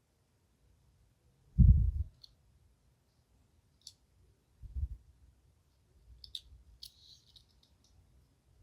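Hands handling small plastic model train pieces on a table: light scattered clicks and taps, with a dull thump about one and a half seconds in and a softer one near five seconds.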